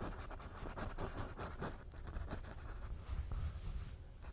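Paintbrush bristles scratching oil paint onto canvas in many short, quick strokes.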